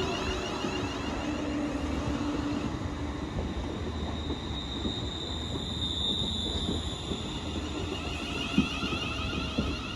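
ScotRail Class 380 electric multiple unit running into the station and slowing, with a steady low rumble and a high, steady squeal from about four to seven seconds in.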